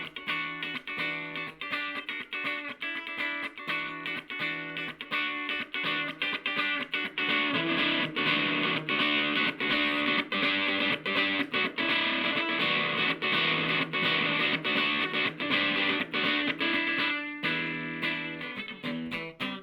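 Electric guitar played through a KATANASOUND effect pedal: a fast run of picked notes with a brief pause near the end.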